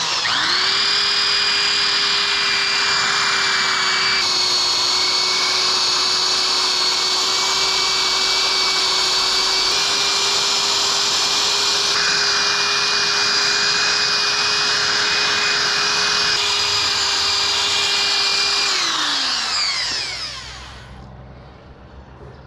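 Black & Decker corded electric drill spinning a sanding disc, with the rasp of sandpaper on wood, sanding burrs off the top edges of a wooden frame. The motor whine holds a steady pitch, then winds down with a falling pitch near the end.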